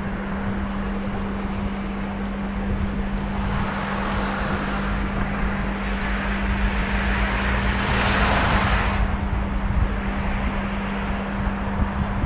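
Road vehicles passing, with tyre and engine noise swelling twice, about 4 and 8 seconds in, over a steady low hum.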